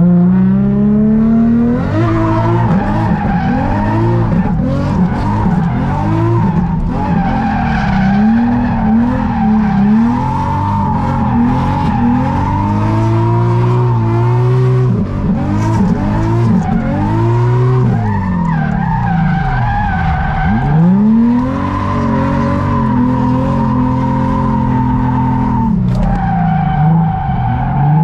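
Nissan 350Z's V6 engine revving up and falling back over and over while drifting, with tyres squealing through the slides, heard from inside the cabin.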